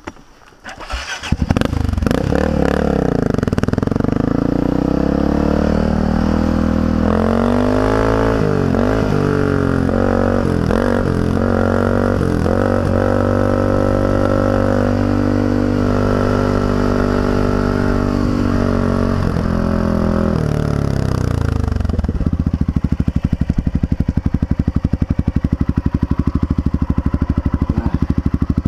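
Honda XR650L's air-cooled single-cylinder four-stroke engine under way. It comes in loud about a second in and revs up and down through gear changes, then holds steady. About 22 seconds in it drops to a lower, evenly pulsing beat.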